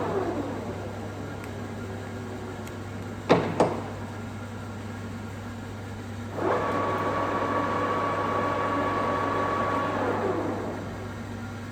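Trens SN50C lathe winding down to a stop, then two sharp clunks a few seconds in. About halfway through it starts up again, runs with a steady whine, and winds down near the end, over a steady low hum.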